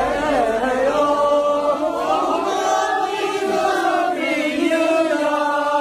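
Singing in long, drawn-out, chant-like notes that glide slowly between pitches, with no percussion under it.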